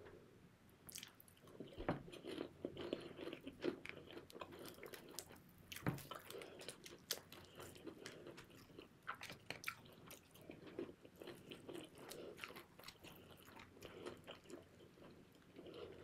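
KFC spicy fried chicken wings being bitten and chewed close to the microphone: a running string of soft crunches and quick mouth clicks, with sharper crunches about two seconds in and again about six seconds in.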